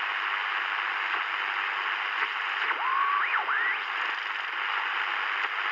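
Sony ICF-SW10 analog shortwave receiver tuned between stations: a steady hiss of static from its speaker, with a whistle that slides up in pitch about three seconds in as the dial passes a signal.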